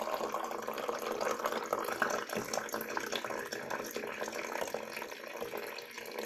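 The last of a stream of water pouring into a ceramic mug, then a spoon stirring the liquid in the mug, with light ticks of the spoon against its sides.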